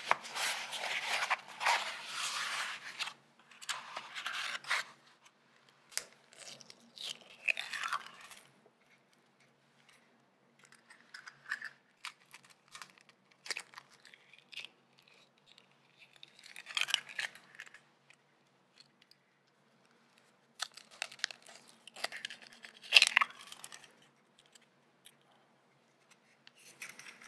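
A molded paper egg carton being handled and opened with a papery, scraping rustle, then eggs cracked one after another: crunchy eggshell cracks and shells pulled apart, in short separate bursts with quiet gaps between.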